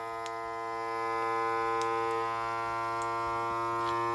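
SJÖBO vacuum sealer's pump running with a steady hum, drawing the air out of the bag. Its tone shifts a little lower about two seconds in, with a few faint ticks.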